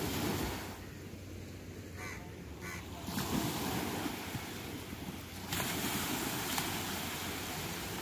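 Small sea waves breaking and washing up a sandy beach, a steady surf that swells and eases, with wind buffeting the microphone.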